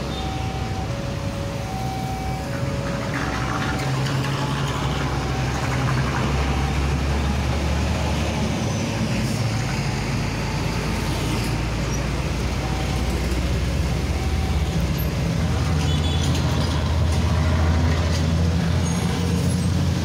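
Heavy road traffic close by: trucks, buses, cars and motorbikes passing with a steady low diesel engine rumble that swells twice as big vehicles go by. Over it, a level-crossing warning signal chimes in two alternating notes for the first few seconds, and again faintly later on.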